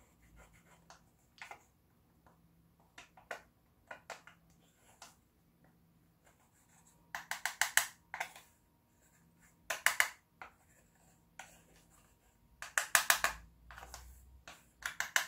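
Small plastic spoon scraping pressed pink makeup powder out of a compact's pan, against the nearly bare bottom of the pan. Scattered light scratches and clicks at first, then four loud bursts of fast scraping strokes from about seven seconds in.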